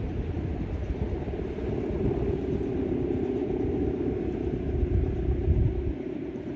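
Steady low drone from the bow hummer (guangan) on a big Balinese bebean kite, heard under gusty wind rumbling on the microphone. The rumble drops off briefly near the end.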